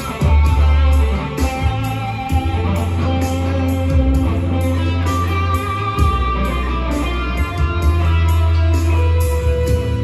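Electric guitar improvising a melodic lead with long held notes over a backing track of bass and a steady drum beat.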